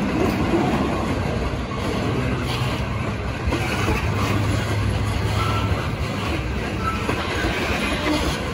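Railroad tank cars of a freight train rolling past: a steady rumble of steel wheels on rail with faint, irregular clicks over the rail joints.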